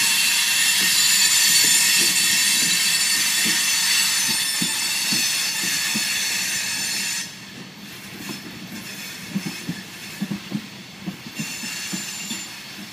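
Coal hopper cars of a CSX freight train rolling past, their wheels squealing in many high steady tones that cut off suddenly about seven seconds in. After that the cars go on rolling more quietly, with uneven clacks from the wheels on the rails.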